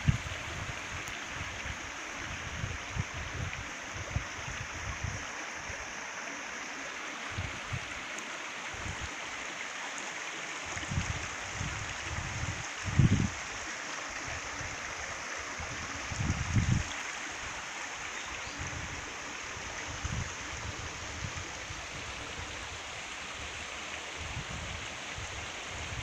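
Shallow stream running steadily over stones, with a few brief dull low thumps on the microphone.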